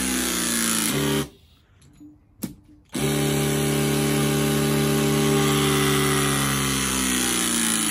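Battery-powered hydraulic crimping tool running its pump motor with a steady hum while crimping a lug onto a heavy battery cable. It stops about a second in, a single click follows, and it starts again a second or so later, its pitch sinking slightly as it presses.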